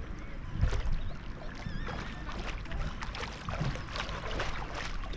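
Sea water splashing and lapping around a GoPro Max held at the surface by a swimmer, with irregular splashes from the swimming strokes and a couple of low thumps of water against the camera.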